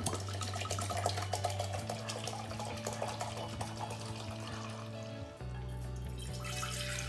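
Liquid pouring and splashing, a continuous noisy trickle, over background music with sustained low notes that change twice.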